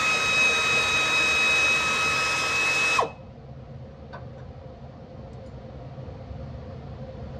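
Cordless power tool motor spinning at a steady high whine, backing out a bolt on the engine's oil pickup tube, and stopping abruptly about three seconds in.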